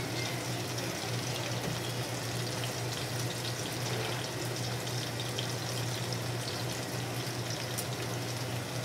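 Seared chicken breasts sizzling steadily in a nonstick frying pan, a continuous hiss with fine crackles, over a steady low hum.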